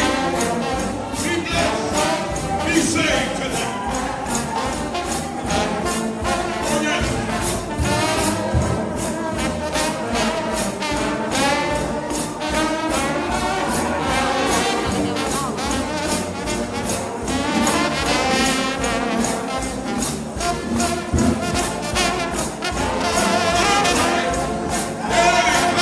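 Trombone shout band playing: a group of trombones holding wavering notes with heavy vibrato over a fast, steady drum and cymbal beat.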